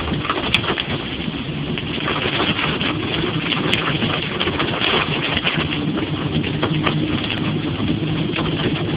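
Ford Explorer driving on a wet dirt road, heard from inside the cabin: a steady engine hum under a constant crackling hiss of tyres on the muddy surface.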